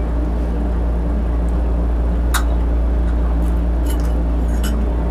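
A steady low hum runs under a few light clinks and clicks of spoons against plates and bowls at a meal table, the sharpest about two and a half seconds in and a small cluster near the end.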